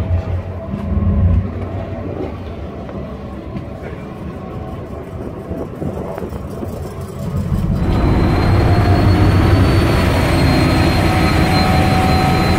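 Ferry's engine and machinery drone, muffled at first with a few knocks, then much louder about eight seconds in on the open car deck: a steady rumble with a thin high whine over it.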